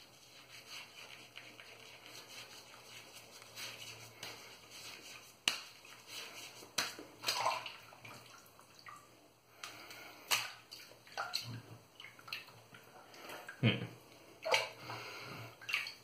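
Wet shaving lather being worked by hand: scattered squelches, swishes and small wet clicks, coming and going in short bursts.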